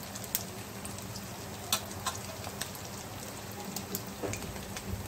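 Sabudana and potato vadas deep-frying in hot oil in a kadhai: a steady sizzle broken by scattered sharp crackles.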